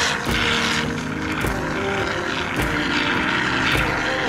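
Background music with a steady beat of about one hit a second and a sustained synth-like drone.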